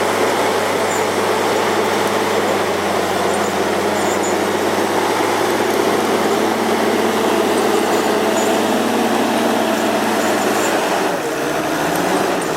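Heavy machine's diesel engine running hard at steady revs, its note dropping about eleven seconds in.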